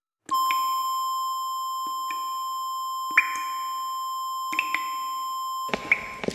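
A steady, high electronic beep tone starts abruptly and holds at one pitch for about five seconds. Several sharp clicks and knocks sound over it. The tone cuts off near the end and gives way to a dense clatter of small taps.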